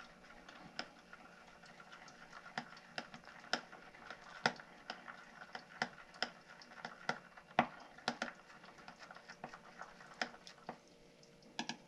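A stir stick clicking and scraping against the side of a cup as liquid soft plastic with hologram flake is stirred: light, irregular ticks several times a second, dying away near the end.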